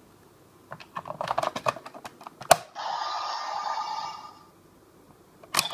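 Kamen Rider Gaim DX Sengoku Driver toy belt: a run of quick plastic clicks as the lockseed is handled and fitted, then a sharp snap as it locks in. The belt's small speaker then plays a short electronic sound effect for about a second and a half. Another sharp click comes near the end.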